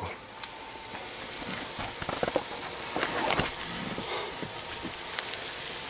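Flaked tuna sizzling in a non-stick frying pan: a steady frying hiss that grows louder over the first few seconds, with a few light clicks.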